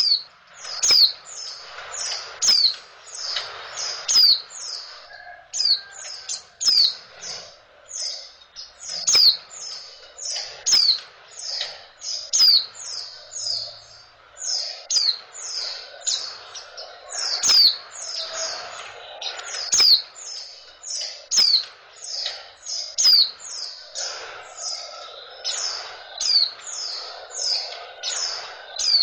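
Female white-eye (pleci) calling in a rapid, unbroken series of short, high chirps, each sliding downward, about two to three a second. It is the female's call, used to bring male white-eyes into breeding condition.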